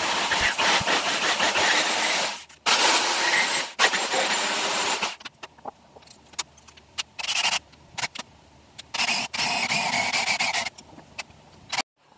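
Cordless drill driving a hole saw into a block of palochina pine, boring the hole for a curtain rod. Two long runs of the drill in the first five seconds, then several shorter bursts that stop near the end.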